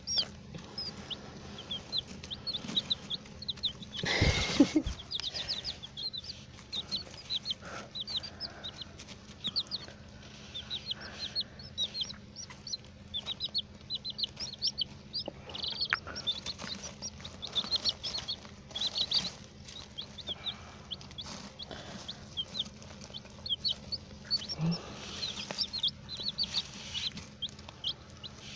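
A brood of baby chicks peeping without pause, a stream of short, high cheeps. About four seconds in there is a brief, loud noise, the loudest thing heard.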